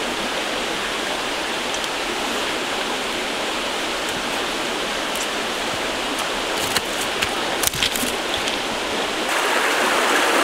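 Shallow rocky stream rushing steadily over stones. A few sharp clicks come about two-thirds through, and the rush grows a little louder near the end.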